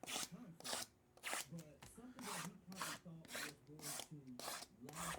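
Repeated rasping strokes, about two a second, from cardboard packaging being scraped and worked open by hand.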